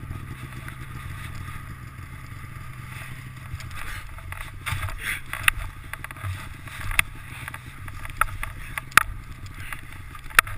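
A snowmobile engine idling steadily. From about four seconds in come sharp crunches and scrapes of gloved hands digging fast through packed snow to free a buried rider.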